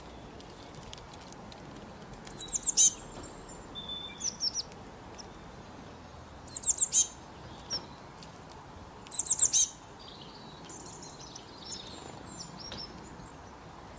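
A small songbird chirping in short bursts of four or five quick, high, downward-sliding notes, four times over, with fainter chirps in between.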